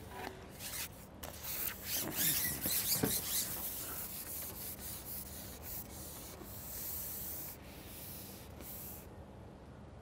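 Rough rubbing and scraping as a carbon fishing pole is handled and slid out through the hands, a run of uneven strokes that stops about nine seconds in.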